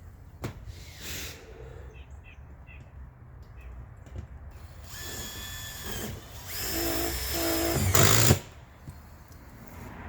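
Power drill driving roofing screws into metal roof panels, in two short runs: a brief whine about five seconds in, then a longer, louder run that stops abruptly a little after eight seconds.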